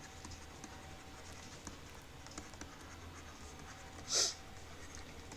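Quiet room tone: a low steady hum with faint scratchy ticks, and one short hiss about four seconds in.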